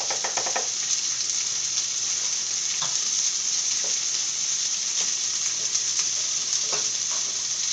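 Chicken thighs searing in a hot pan: a steady sizzle of frying, with a few faint pops along the way.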